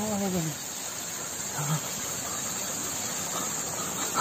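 Steady hiss of rushing water with a steady high insect chirring, and a man's voice calling out briefly at the start.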